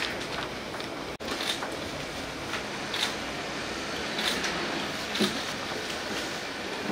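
Steady room noise with a hiss, broken by scattered faint clicks and rustles.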